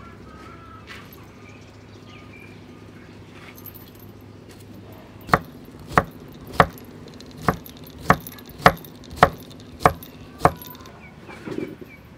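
Knife slicing cucumber on a wooden chopping board: nine sharp chops at an even pace, a little under two a second, starting about five seconds in.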